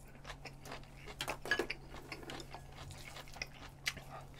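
Close-miked chewing of stir-fried webfoot octopus: soft, irregular wet clicks and smacks from the mouth, over a low steady hum.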